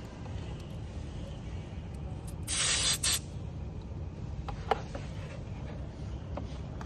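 A short burst of air hissing, about a second long, midway through, as the compressor's air hose is fitted onto the tire valve. It is followed by a few light clicks of handling over a steady low background rumble.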